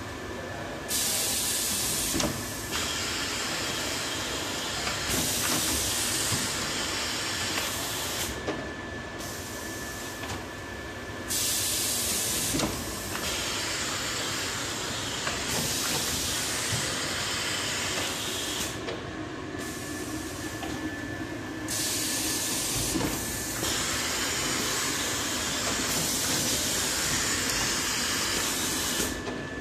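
Automatic high-frequency PVC welding machine cycling, with a steady mechanical running noise and a faint high whine. A loud hiss sets in about every ten seconds and lasts most of each cycle.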